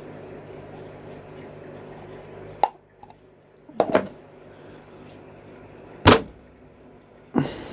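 Four short sharp knocks and clicks of hard plastic parts being handled and set down on a table, the loudest about six seconds in. A steady low hum stops at the first click, under three seconds in.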